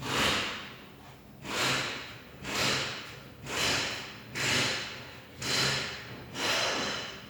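Body filler being spread over a car body panel with a spreader: seven scraping strokes, about one a second, each swelling and fading.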